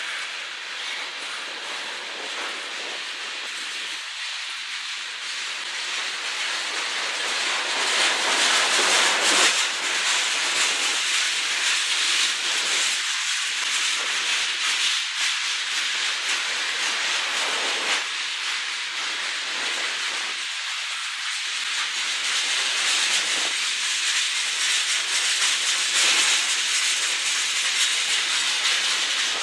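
Tank cars of a freight train rolling past: a steady rushing hiss of steel wheels on the rails with faint clicks, swelling a little about eight seconds in.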